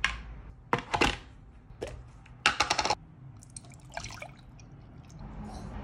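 Sharp clicks and knocks as the lid comes off an electric milk frother and the jug is handled, with a quick run of clicks about two and a half seconds in. Then milk pours from a carton into the frother's stainless steel jug.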